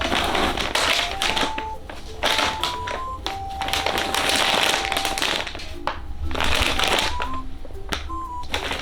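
Background music: a simple melody of short stepping notes, with one long held note, over a light rhythmic percussion backing.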